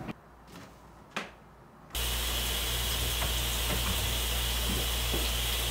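A shower running: a steady hiss of water spray with a low hum under it, starting abruptly about two seconds in. Before it, near quiet with one soft knock.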